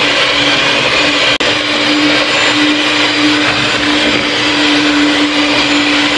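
Electric hand mixer running at its lowest speed, its beaters whirring through a thin liquid mix of ice-cream powder and cold milk: a steady motor whir with a constant hum. It cuts off suddenly at the end.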